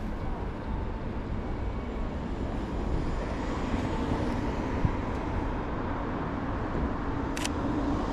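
Street traffic: a steady road rumble with a passing car's engine hum that swells from about three and a half seconds in. A single sharp click comes near the end.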